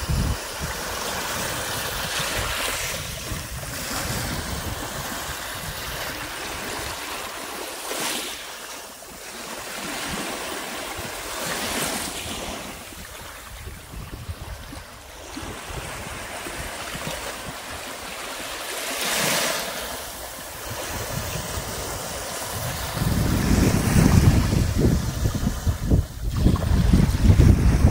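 Small, gentle waves lapping and washing up over a sandy shore, swelling and fading every few seconds. About three quarters of the way through, wind buffeting the microphone adds a louder low rumble.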